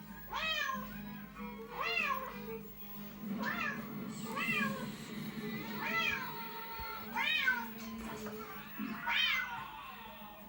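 Cat meows from a recording played on a mobile phone: about seven separate meows, each rising then falling in pitch, one every second or two.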